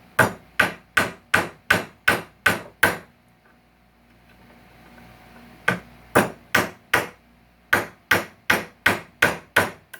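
Rapid, evenly paced hammer taps, about three a second, in three runs: eight strokes, a pause of nearly three seconds, then four, then six or seven. They are struck while working nails and staples out of salvaged couch wood.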